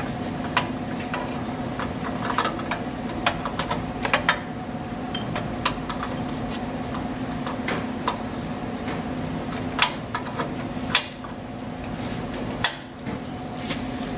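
Hand ratchet wrench clicking in short, irregular runs of metallic clicks while working an oxygen sensor loose from a truck's exhaust pipe, over a steady hum.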